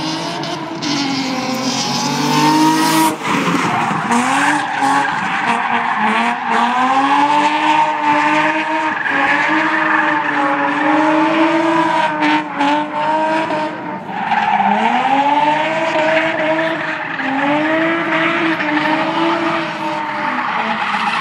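Nissan 350Z's 3.5-litre V6 engine revving hard through a drift run, its pitch climbing and falling again and again with a couple of brief drops as the driver lifts. Tyres squeal and skid as the car slides sideways.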